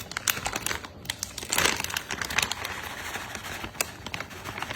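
Grated Parmesan cheese being shaken out of its package over a dish: irregular clicks and rustling, loudest about a second and a half in.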